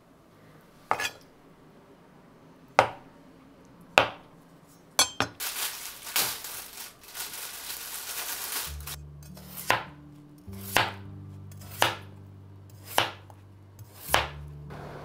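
Kitchen knife cutting through a peeled potato onto a cutting board, one sharp knock per cut about once a second, with a few seconds of steady rushing hiss in the middle. Soft background music comes in about halfway through.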